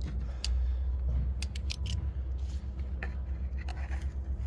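Metal grill tongs clicking and scraping on the Weber kettle's cooking grate as meat is laid on: a scattering of short, sharp clicks over a low steady rumble.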